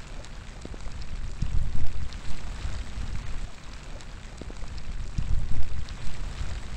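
Rain falling outdoors: a steady hiss with many individual drops ticking. Wind gusts rumble on the microphone, swelling about a second and a half in and again near five and a half seconds.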